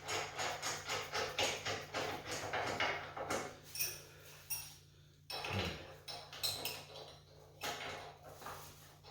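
Steel wrenches clicking and clinking on a generator's axle bolt, nut and frame bracket as the axle nut is tightened. A quick run of small clicks comes first, then a few scattered knocks.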